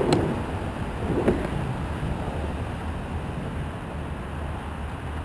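Two sharp knocks about a second apart over a steady low outdoor rumble.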